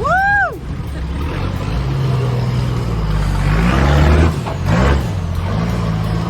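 Four-wheel-drive vehicle's engine running on the track, the revs rising and falling a couple of times around the middle.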